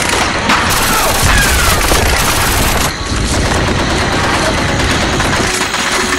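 Sustained automatic gunfire, many rapid shots overlapping into a continuous volley.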